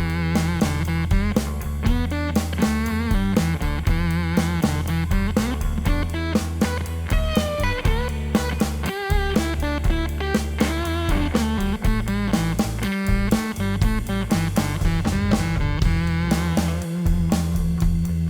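Electric guitar played through a Rush Pep Box fuzz pedal, a distorted riff over a drum beat, with some wavering, bent notes.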